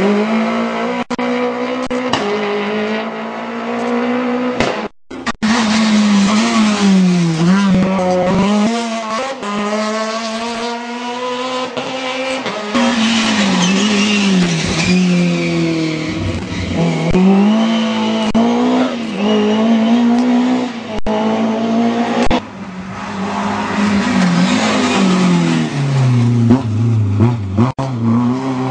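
Rally cars coming through a bend one after another, engines revving hard. Each engine's pitch drops and climbs again as the car brakes, downshifts and accelerates away. The sound briefly cuts out about five seconds in.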